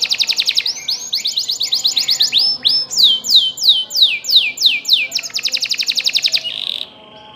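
A domestic canary singing a long rolling song: runs of repeated descending whistled notes, about three or four a second, alternating with much faster trills. The song stops just before the end.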